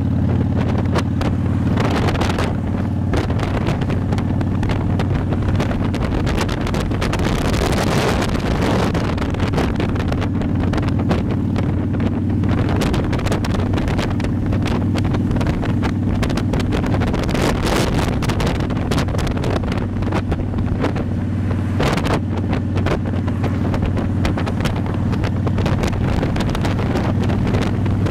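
Motorcycle engine running steadily at cruising speed, with wind buffeting the microphone.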